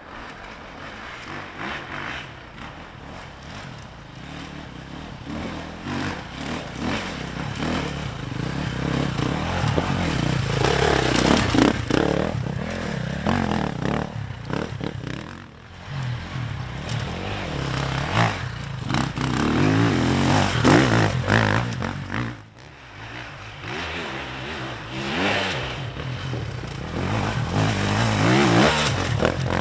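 Enduro motorcycle engine revving hard on a steep hill climb. It rises and falls repeatedly as the throttle is opened and closed, with a few louder surges partway through.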